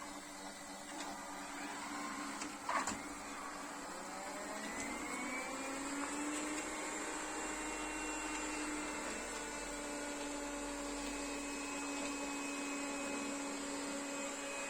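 Puppyoo R30 robot vacuum cleaner running. Its motor whine rises in pitch from about four to six seconds in, then holds steady. There is a single sharp click just before three seconds.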